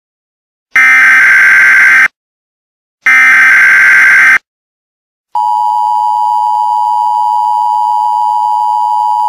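Emergency Alert System broadcast tones: two loud bursts of the data header's harsh electronic screech, a second apart. Then, a little past halfway, the steady two-note attention signal starts and holds.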